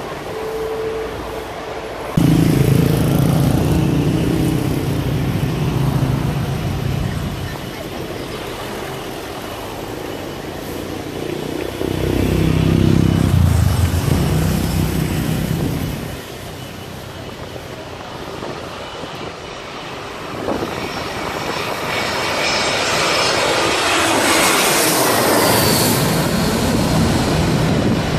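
Motorcycle engines pass close by on the street, one starting about two seconds in and another around the middle. From about twenty seconds in, a jet airliner on approach grows loud overhead as a rising hiss and whine. It peaks near the end, with its pitch falling as it goes past.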